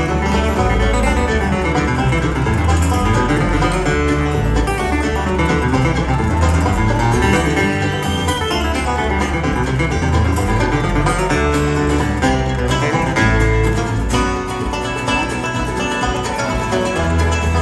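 Bluegrass string band playing live, with upright bass and acoustic guitar among the picked strings, in steady time.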